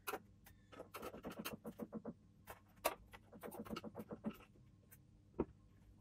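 A run of faint clicks and light metal taps in two quick clusters, with single sharper clicks between, from a desktop computer case's second side panel being opened.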